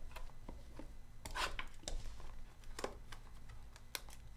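A shrink-wrapped cardboard box of trading cards being slid and handled, its plastic wrap scratching and rustling under the fingers in a few short scrapes, the loudest about a second and a half in and near three seconds in.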